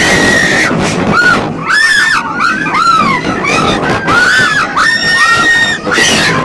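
Roller coaster riders screaming: a run of high-pitched screams, some rising and falling, one held steady about five seconds in, over wind rushing on the phone's microphone.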